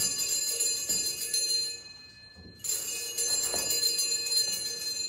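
Sanctus bells rung at the consecration of the cup: a cluster of small bells ringing and dying away, then rung again about two and a half seconds in.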